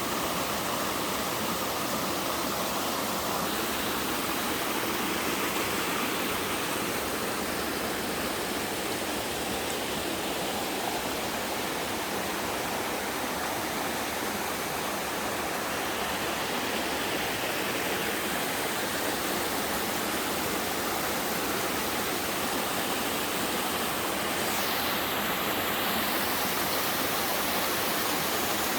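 Steady rush of water from a three-tiered sliding waterfall, a mountain stream pouring down over sloping rock in a continuous cascade.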